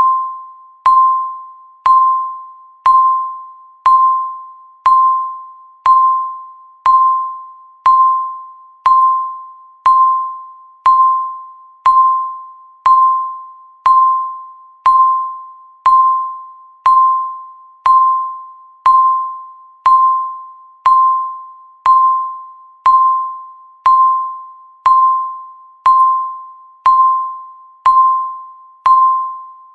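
Countdown timer beep: a single electronic tone, once a second. Each beep starts sharply and fades away before the next one, marking each second that is left.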